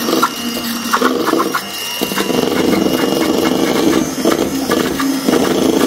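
Electric hand mixer running, its twin beaters whisking egg yolks into whipped egg whites and sugar in a stainless steel bowl: a steady motor whir with a few light clicks in the first couple of seconds.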